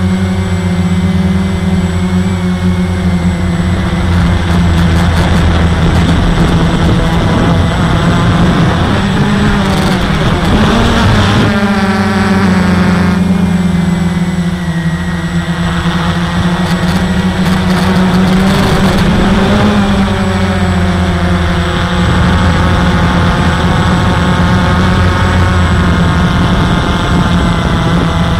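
Walkera QR X350 quadcopter's electric motors and propellers running in flight, heard close up from a camera on the frame: a loud, steady buzzing drone. Its pitch wavers up and down with throttle changes, most strongly about a third of the way in and again about two-thirds through.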